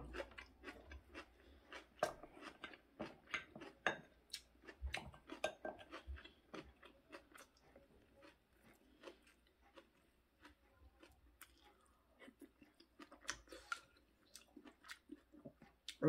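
A person chewing food close to the microphone: faint, wet mouth clicks and smacks, which pause for a few seconds in the middle before starting again.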